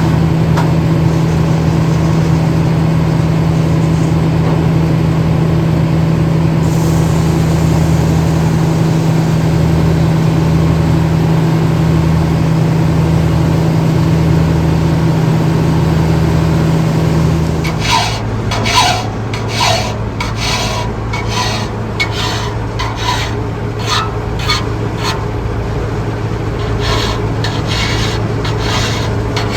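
Engine-driven circle sawmill running steadily. Partway through, the engine note drops as if under load, and a rasping sound with scattered knocks sets in: the blade cutting through a log.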